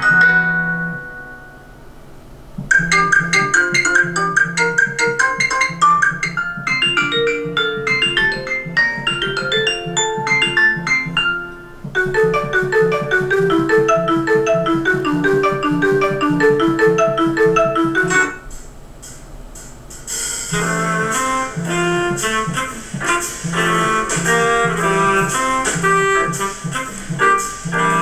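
Stock Xiaomi ringtones previewed one after another: short melodic tunes over a steady beat. A new tune starts about 3 s in, again about 12 s in, and again after a short lull about 20 s in, each one cut off when the next is picked.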